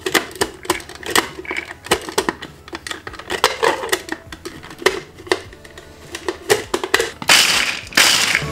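Plastic clicks and rattles as the lid of a KitchenAid mini food processor is fitted onto the bowl of pecans. Near the end come two short, loud pulses of the food processor's motor and blade chopping the pecans.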